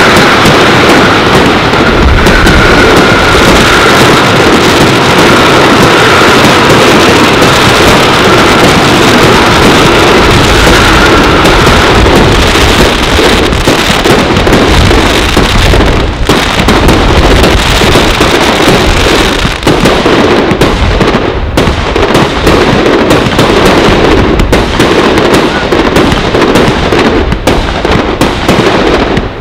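Firework battery (cake) firing a rapid, continuous barrage of loud shots and crackling star bursts. In the second half the shots come more separately, with short gaps between them.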